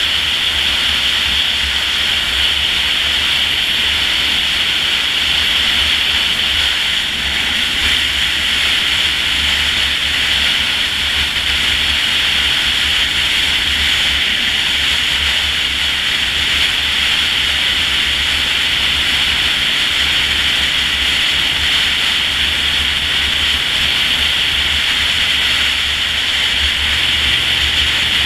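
Steady wind rush over the camera from a Honda VTR1000 motorcycle cruising at a constant speed, with a low rumble underneath.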